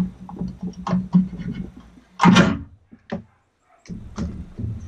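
Clicks, knocks and rustling from hands working a rubber water hose onto the fitting of a Mercury Thunderbolt 500 outboard's powerhead. There is a louder scraping rustle about two seconds in.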